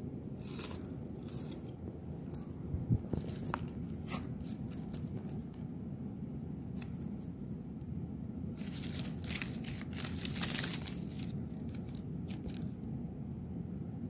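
Close rustling and crinkling handling noise near the microphone, with a few sharp clicks about three seconds in and a denser stretch of rustling about two-thirds through, over a steady low background rumble.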